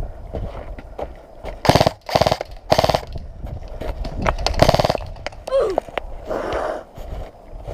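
Airsoft guns firing short bursts of rapid automatic fire, four bursts in all, each a quick run of clicks lasting well under half a second.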